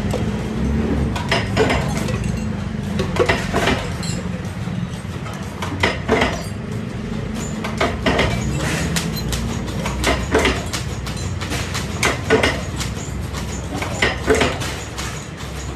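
Irregular light metallic clinks and taps, some in quick pairs, as stainless steel parts are handled and worked, over a steady low hum.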